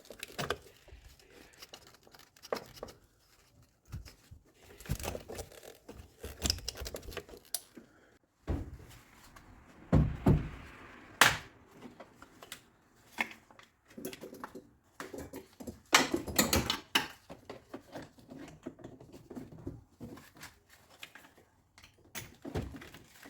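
Irregular clicks, knocks and rustling of hand work on car parts in an engine bay, with a few louder clunks about ten seconds in and again around sixteen seconds: the wiring connector being clipped onto the new reverse light switch and parts being refitted.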